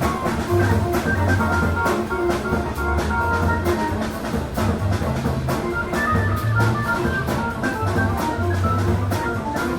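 Jazz-funk instrumental music with a steady drum-kit beat, bass, guitar and organ.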